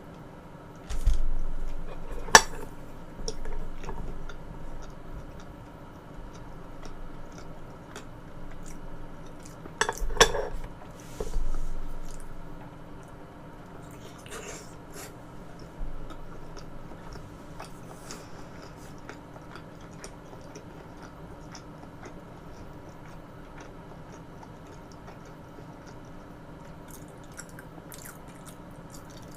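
Close-miked eating: chewing and handling of tableware, with two sharp clinks about two seconds in and about ten seconds in. The rest is quieter, with small scattered clicks.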